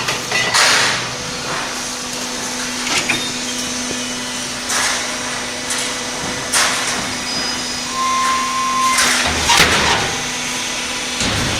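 Hydraulic scrap-iron block press running with a steady motor hum, and several sharp metallic clanks of scrap iron scattered through it.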